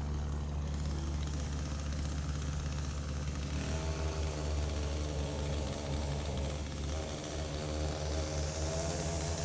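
Gas-powered string trimmer (weed whacker) engine running steadily, its tone shifting a couple of times.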